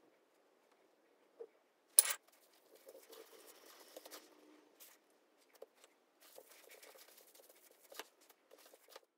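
Bamboo sushi mat rustling and clicking as a sushi roll is rolled and pressed in it, with one sharp knock about two seconds in.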